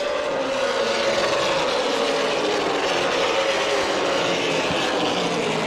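A field of Super Late Model race cars lapping the oval at racing speed, their V8 engines blending into one steady drone. The engine pitch sags a little through the middle and climbs back up as the cars come off the turn.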